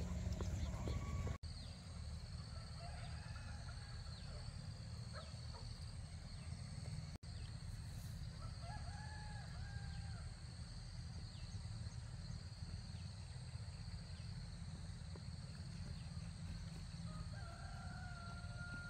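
Roosters crowing several times, the clearest crow about nine seconds in and a long, slowly falling one near the end. A steady high-pitched whine runs underneath, and the sound drops out briefly twice.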